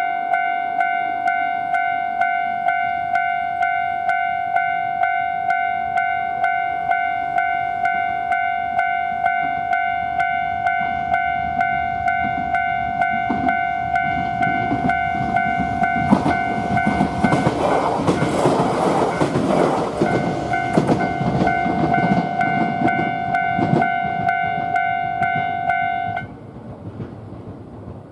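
Japanese level-crossing warning bell ringing its rapid, even 'kan-kan' throughout, while a Yoro Railway train passes partway through, its wheels clattering over the rails. The bell cuts off suddenly near the end as the crossing clears.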